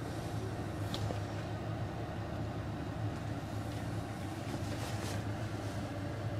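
Motorboat engine running steadily at low speed during a slow harbour manoeuvre, a steady low hum.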